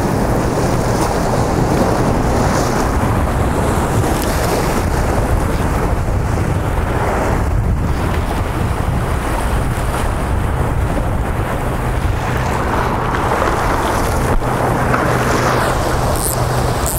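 Strong wind buffeting the microphone over the steady wash of ocean surf against a jetty.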